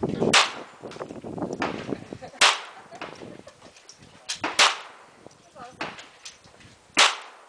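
Sig Sauer Mosquito .22LR semi-automatic pistol firing slow aimed shots: four sharp cracks about two seconds apart, with a few fainter cracks in between.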